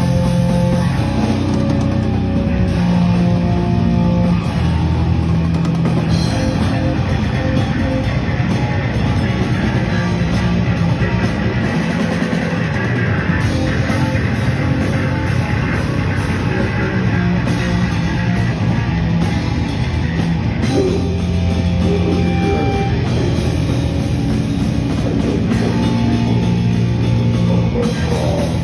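Heavy metal band playing loud: distorted guitars and bass over a drum kit, the low notes held and changing every second or so.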